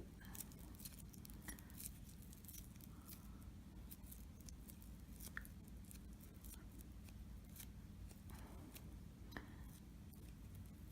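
Faint, scattered sticky clicks and smacks of hands kneading play-doh mixed with glitter glue, over a low steady hum.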